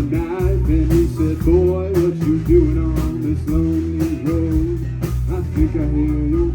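Live rock band playing an original blues-rock song: drums, bass and guitars, with a bending lead melody over them.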